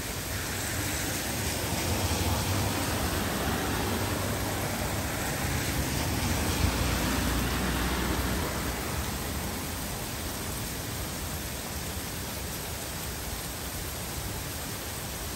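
Heavy rain falling in a steady hiss. It swells louder for several seconds in the middle, with a low rumble underneath, then eases back.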